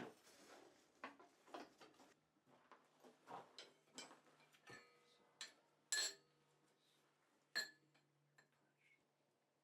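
Scattered light clinks and knocks of steel tools and stock being handled. The two sharpest clinks, about six and seven and a half seconds in, ring briefly.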